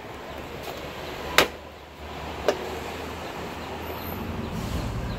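Plastic retaining clips of a Honda Fit's front bumper cover snapping loose as the cover is pulled off the fender: two sharp snaps about a second apart, the first the louder.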